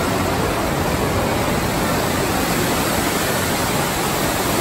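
Steady rush of the Rain Oculus: a heavy column of water pouring from a ceiling bowl and splashing into the pool below.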